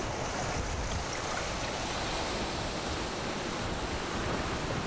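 Steady rush of wind and waves over a choppy sea.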